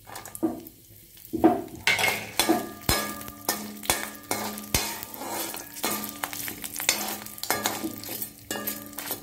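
Garlic, urad dal and dried red chillies frying in hot oil in a kadai, sizzling, while a steel slotted spatula stirs and scrapes against the pan in quick strokes, about two a second, starting about a second and a half in.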